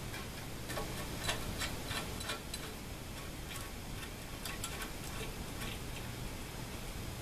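Irregular light metallic clicks and ticks of screws being handled and started by hand into an aluminium plate, bunched over the first five seconds or so, over a faint low hum.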